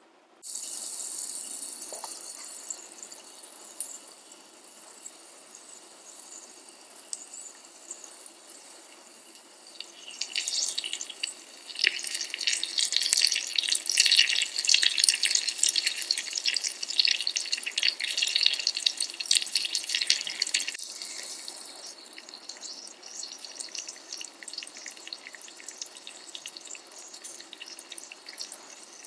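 Miniature dried anchovies sizzling and crackling in hot oil in a tiny candle-heated dish. The sizzle grows sharply louder about ten seconds in, stays at its loudest for about ten seconds, then settles to a lighter crackle.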